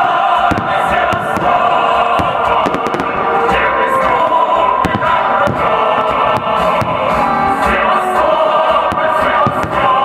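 Loud choral music played over a sound system, with fireworks going off through it as a scatter of sharp bangs and crackles, thickest in the first few seconds.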